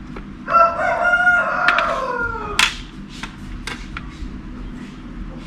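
A rooster crowing once in a long call of about two seconds that falls in pitch at the end, with light scattered clicks of small screws and a screwdriver.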